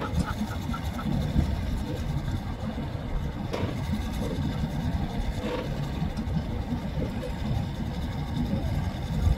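Pickup truck engines idling and running slowly while pulling boat trailers, heard as a low rumble with a few faint knocks.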